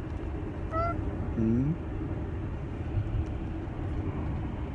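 Steady road and engine rumble inside a moving car's cabin, with one brief, short cat chirp about a second in.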